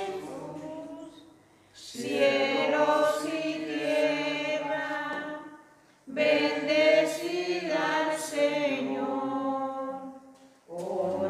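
A group of voices singing a Spanish Eucharistic hymn in long held phrases, with short pauses for breath about two seconds in, around six seconds in and near the end.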